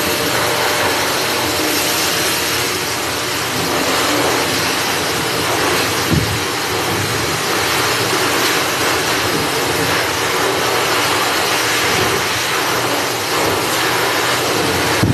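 High-velocity dog grooming dryer blowing air steadily through its hose onto a chow chow's coat, with a brief low thump about six seconds in.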